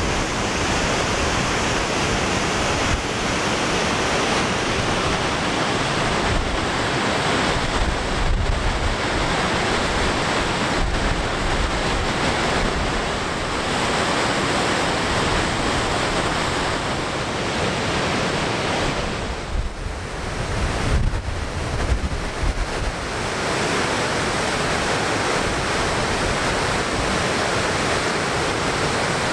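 Steady rushing of the Goðafoss waterfall and the rapids below it, with gusts of wind buffeting the microphone now and then, strongest about two-thirds of the way through.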